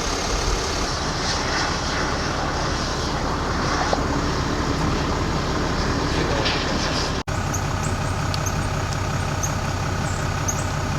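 A vehicle's engine running with road and cabin noise, heard from inside the vehicle. The sound is steady, and about seven seconds in it cuts out for an instant, then comes back as an evener low hum.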